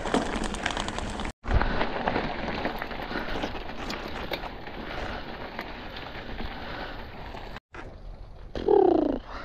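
Mountain bike riding on a forest trail: a steady crackling, rustling noise of tyres on the ground with small knocks, which drops out for a moment twice. Just before the end comes a short, loud tone that glides upward.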